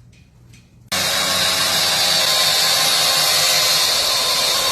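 Powered wire wheel stripping paint off a length of round bar stock. It starts abruptly about a second in and runs as a loud, steady, high-pitched grinding hiss.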